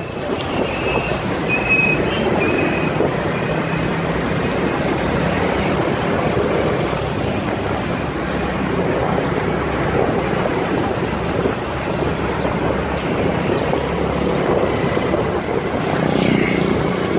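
Motorcycle running along the road, heard over a steady rushing noise of the ride. A few brief high tones sound in the first three seconds.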